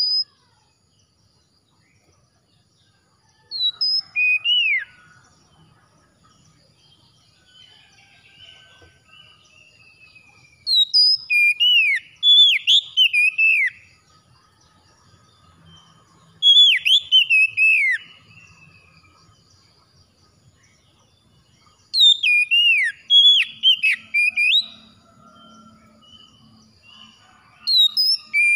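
Oriental magpie-robin (kacer) singing: loud whistled phrases of sweeping, falling notes, in about five bursts of one to three seconds separated by pauses.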